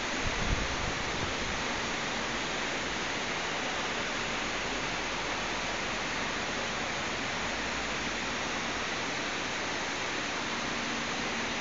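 Mill roll CNC turning lathe running with a steady, even hiss. A few low bumps come about half a second in, and a faint steady hum joins near the end.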